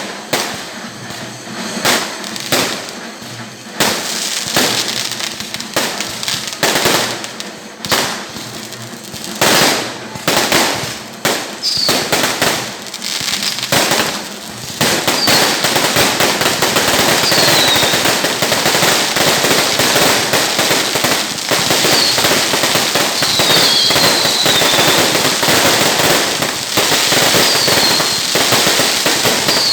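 Fireworks: separate loud bangs with gaps between them, then about halfway through a dense, unbroken barrage of rapid explosions and crackling. A few short falling whistles sound over the barrage.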